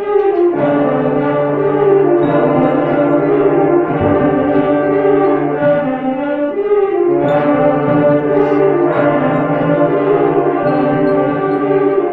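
Layered brass-like tones, several notes held at once, each chord lasting a second or two before shifting to new pitches.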